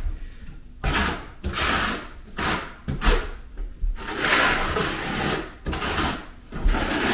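The flat side of a steel square-notch trowel scraping thinset mortar across a plywood subfloor in repeated strokes, about one a second, with one longer stroke in the middle. This is the keying-in pass that presses the mortar into the wood before it is combed out with the notched side.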